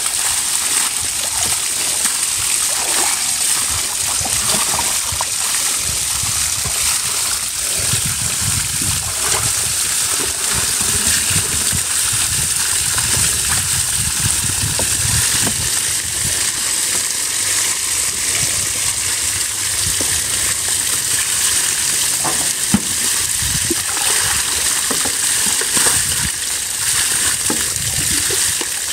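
Water splashing and dripping as wet, freshly dyed wool skeins are lifted and wrung out over a wheelbarrow of dye bath, over a steady hiss. A single sharp knock about three-quarters of the way in.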